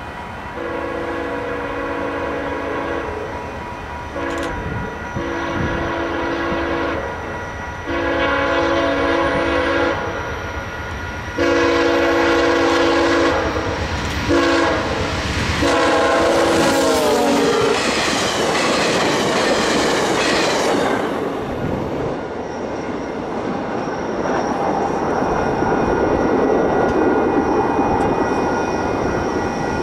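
VIA Rail passenger train led by a GE P42DC locomotive sounding its multi-chime horn in a series of long blasts with a couple of short ones, growing louder as it nears; the last blast drops in pitch as it passes. A loud rush of wheels on rail follows as the train goes by, fading to a rumble as it moves away.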